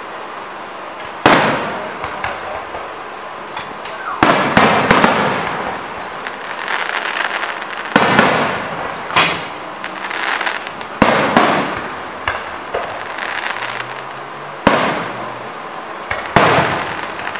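Aerial firework shells bursting: about a dozen sharp bangs at uneven intervals, some coming in quick pairs, each trailing off in an echoing tail.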